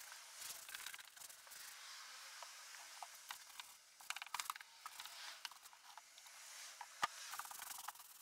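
Hand scrubbing brush worked briskly back and forth over a wet, soapy wooden cabinet: a faint bristly rasping with scattered clicks, and one sharper knock about seven seconds in.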